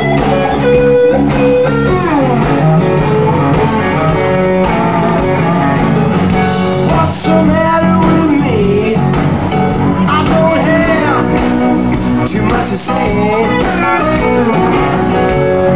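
Live blues-rock band playing an instrumental section, with an electric guitar lead bending and sliding notes over bass and drums.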